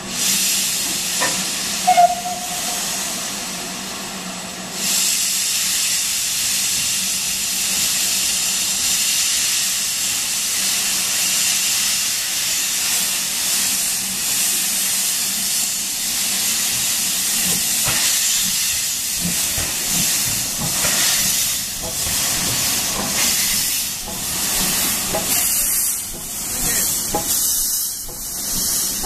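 Stanier 8F steam locomotive No. 48624 with its cylinder drain cocks open, a loud steady hiss of escaping steam that gets louder about five seconds in. There is a brief whistle toot about two seconds in. In the later part the hiss pulses in uneven beats as the engine works past.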